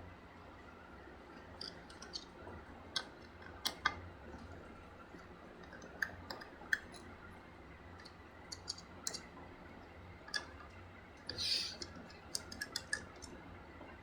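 Scattered small clicks and ticks of a screwdriver and loose screws as the laptop's back-cover screws are taken out. There is a short scrape about eleven seconds in.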